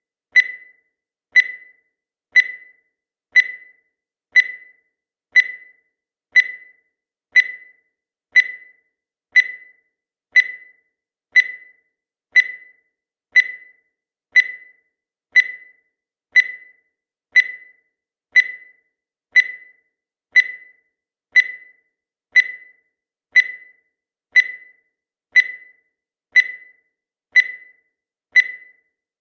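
Countdown timer sound effect: a short, high beep repeating once a second, each one dying away quickly.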